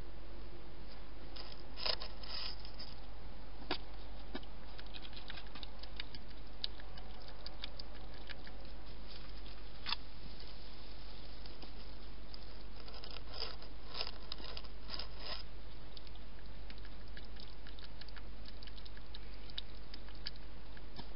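A wild European hedgehog eating close to the microphone: bursts of small crunching clicks about two seconds in and again near the middle, with a few single sharp clicks between, over a steady hiss from the camera.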